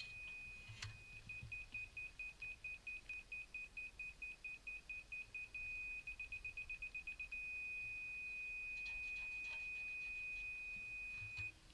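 Laser level receiver on a grade staff beeping several times a second, beeping faster about six seconds in, then holding a steady tone until it cuts off near the end. The steady tone is the receiver's on-grade signal: the staff is level with the rotating laser's beam.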